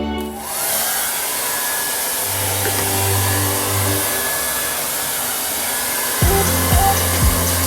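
Hair dryer blowing steadily, a constant airy rush that starts about half a second in, with soft background music underneath.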